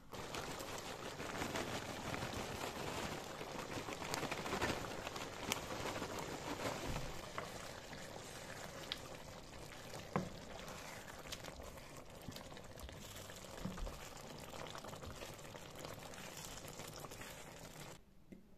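Thick ground-beef and potato stew in tomato sauce bubbling in a frying pan as it cooks, with scattered small pops and a wooden spoon working through it. The sound cuts off suddenly near the end.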